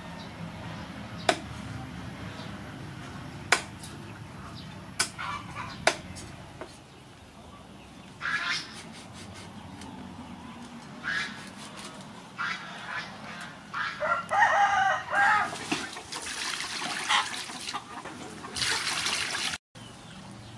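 A knife chopping fish on a wooden chopping block: a few sharp chops in the first six seconds. A rooster crows, loudest about two-thirds of the way in. A rushing, hissing noise fills the last few seconds.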